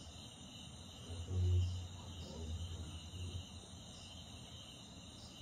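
A low, drawn-out call starts about a second in and lasts about two seconds: a tiger roaring, which the listeners take to be close by. Crickets trill steadily throughout.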